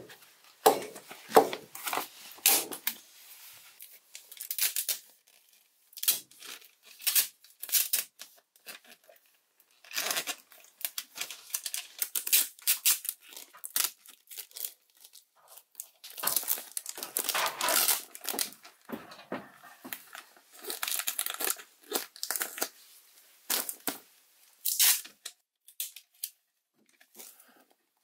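Red sheathing tape being pulled off the roll and torn, with plastic vapour-barrier sheeting crinkling under the hands, in a string of short noisy bursts with brief pauses. Near the start there are a few sharp clacks of a staple gun fixing the sheeting.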